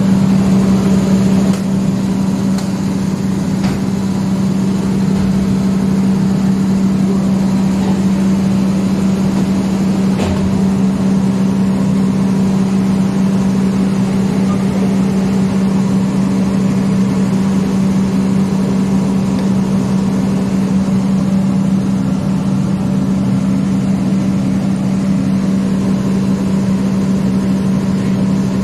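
Steady drone of a running engine, a constant low hum that neither rises nor falls, with a few faint clicks of tool handling.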